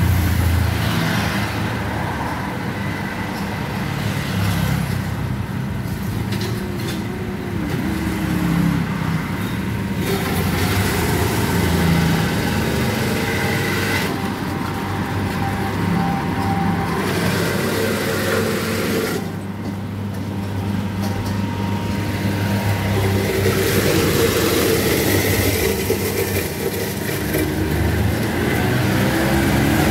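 Steady road-traffic noise with engine hum, continuing without a break.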